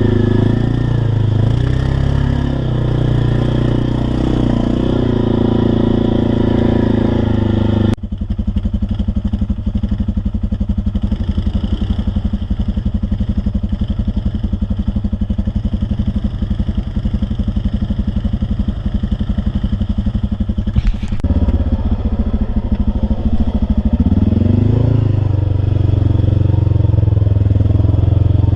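Mud-racing truck engines running hard. The sound changes abruptly twice, about 8 and 21 seconds in, to a fast, even engine pulse. Near the end an engine revs up and back down.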